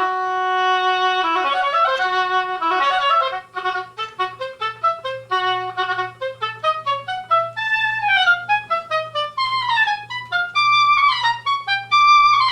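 Solo oboe playing a passage: a long held note, then quick detached notes with several descending runs, ending on a held high note. The note after each triplet is slurred rather than tongued, which the teacher's correction takes for an articulation error. A faint steady low hum runs underneath.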